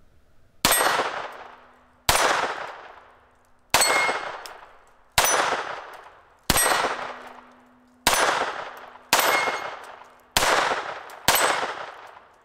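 Nine unsuppressed shots from a Walther PPK/S .22 LR pistol firing Remington Thunderbolt, spaced about a second to a second and a half apart. Each crack trails off over about a second with a ringing tail.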